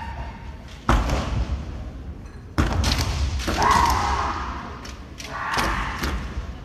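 Kendo bout: two sharp thuds about a second and a half apart, from stamping footwork and shinai strikes on the wooden gym floor, then a long drawn-out kiai shout from a fencer.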